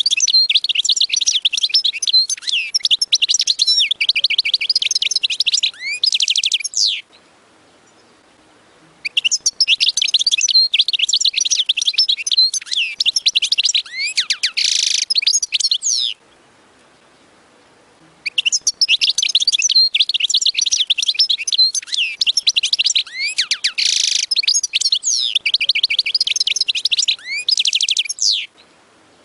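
European goldfinch singing in three long bouts of rapid twittering and trilled notes, each several seconds long, with pauses of about two seconds between them.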